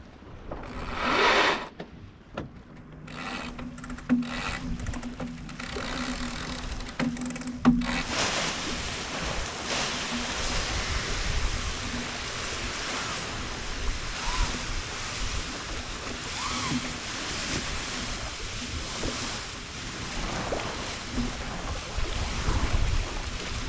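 Spinnaker halyard being hauled up by hand at the mast: a run of short rasping pulls of rope over the first several seconds, the loudest about a second in. After that comes a steady rush of water and wind along the sailboat's hull.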